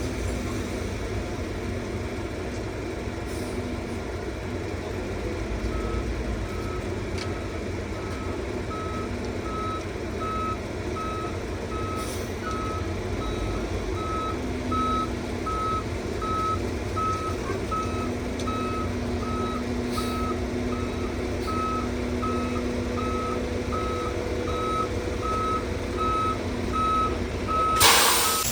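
A heavy truck's reversing alarm beeping steadily about once a second over the truck's diesel engine running, with a brief loud rush of noise just before the end.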